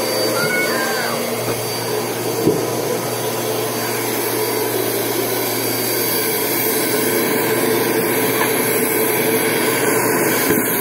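Vacuum cleaner motor running steadily with a constant hum, and a single knock about two and a half seconds in.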